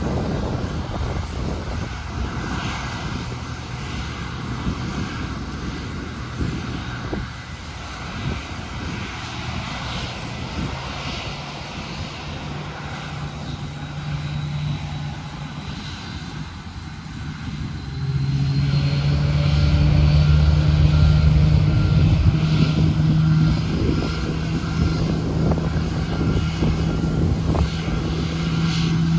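Airplane engines running with a steady low drone that grows clearly louder about two-thirds of the way through, with a faint high whine rising just before.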